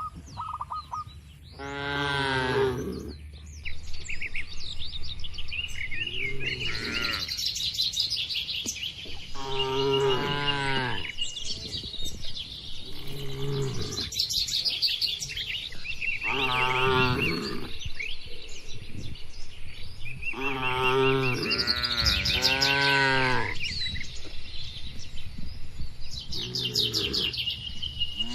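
Cattle mooing over and over: about eight long, pitched calls, one every three or four seconds, two of them close together past the middle. Birds chirp between and over the calls.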